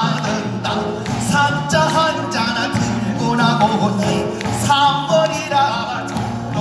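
A male pansori singer sings with a wavering voice through a microphone over a Korean traditional orchestra.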